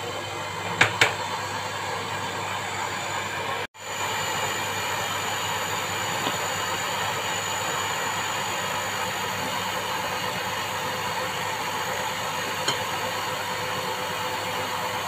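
Electric mixer running steadily, its beaters whirring through butter-cookie dough as flour is worked in. Two sharp clicks about a second in, and the sound drops out for an instant just under four seconds in.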